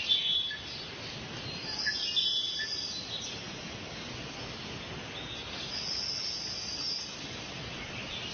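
Outdoor ambience: a steady background hiss with three high, held calls, one near the start, one about one and a half seconds in, and one past the middle, the longest lasting about a second and a half.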